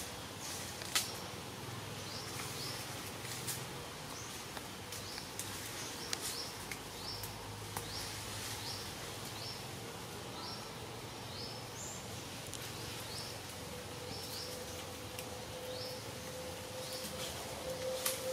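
Outdoor forest ambience: a short high chirp, rising in pitch, repeats a bit more than once a second, with scattered sharp clicks. A steady humming tone fades in over the last few seconds.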